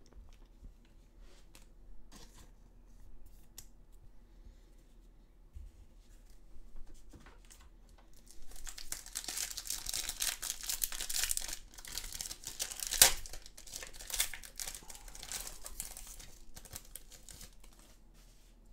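Foil wrapper of an AFL Footy Stars trading-card pack being torn open and crinkled, loud crackling for several seconds past the middle with one sharp crack. Before that, only faint clicks and slides of cards being handled.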